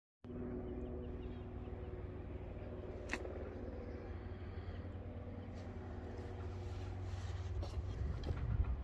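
Wind rumbling on the microphone over faint outdoor background, with a steady low hum during the first three seconds and a single sharp tick about three seconds in; the wind grows gustier near the end.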